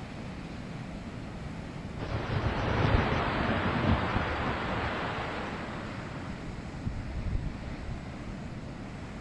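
Storm waves breaking against a harbour breakwater, with wind on the microphone. About two seconds in, a big wave crashes and its hiss of surf and spray swells, then dies away over the next few seconds.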